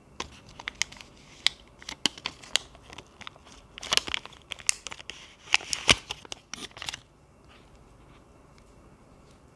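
Packaging being handled during an unboxing: crinkling and rustling with irregular sharp clicks and taps, busiest about four to six seconds in, stopping about seven seconds in.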